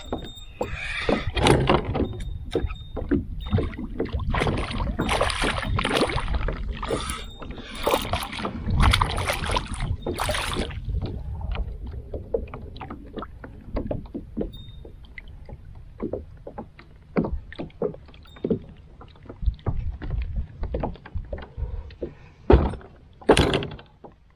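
A hooked peacock bass splashing and thrashing at the water's surface beside a plastic fishing kayak, in repeated noisy bursts for about the first ten seconds. After that come quieter scattered knocks and bumps on the kayak's hull as the fish is landed, with two sharp knocks near the end.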